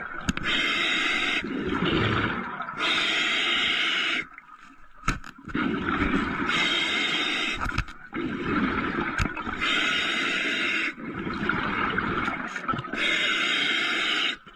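Diver breathing through a compressor-fed (hookah) regulator underwater: a hissing inhale through the regulator alternates with the low bubbling rush of the exhale, about five breaths at an even pace.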